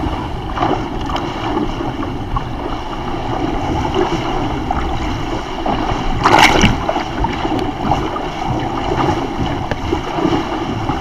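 Water rushing and spraying along the hull of a Bavaria 41 sailing yacht under way, with a louder splash of a breaking wave about six seconds in.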